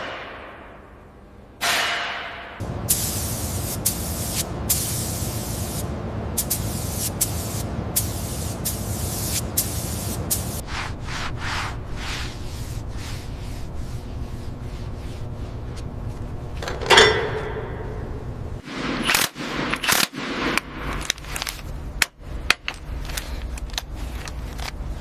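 Repeated bursts of spraying hiss from a spray nozzle, each about half a second to a second long, over a steady low hum.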